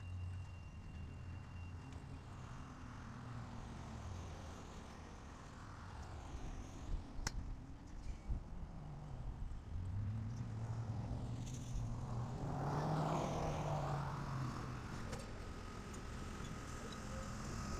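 A vehicle's engine hums low and steady, then swells louder as it passes about twelve seconds in and fades a few seconds later. A couple of sharp clicks come around seven and eight seconds in.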